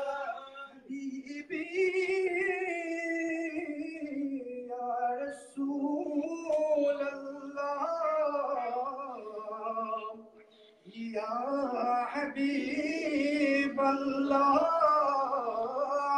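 A man singing a Bangla naat, a devotional song in praise of the Prophet, in long, wavering held lines with no instruments. The song breaks briefly about ten seconds in, then goes on.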